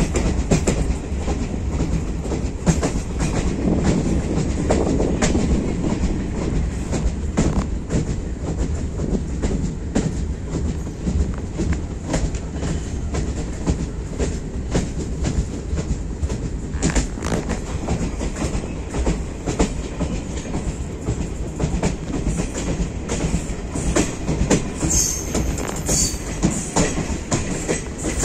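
Passenger train coach running at speed, heard from its open doorway: steady rumble of wheels on the rails with irregular clicks and clacks over joints and points. A brief high-pitched screech comes near the end.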